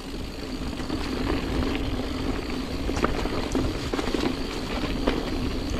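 Mountain bike rolling fast over a dirt trail: steady tyre rumble with scattered clicks and rattles throughout.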